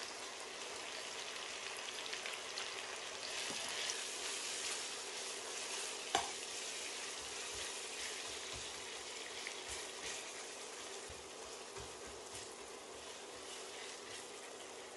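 Freshly added sliced onions sizzling in hot oil and ghee in a steel pot, frying over low-to-medium heat, with a metal spatula stirring through them. A single sharper click about six seconds in.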